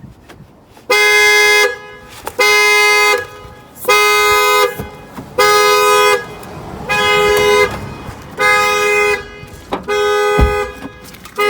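Car alarm sounding the car's two-note horn in regular blasts, about one every second and a half, set off by the car being opened without the key fob during a lockout.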